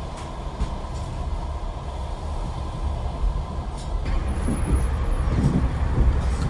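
A moving vehicle's steady low rumble.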